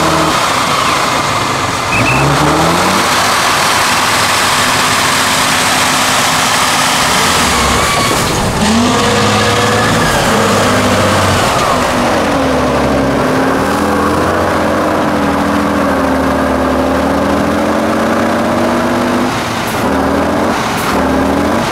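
Off-road truck's diesel engine revving under load, its pitch rising and falling again and again as the driver works the throttle, with a few short knocks near the end.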